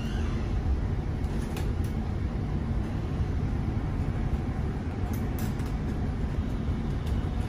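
Steady low rumble of a tram in motion, heard from inside the passenger cabin, with a few faint clicks.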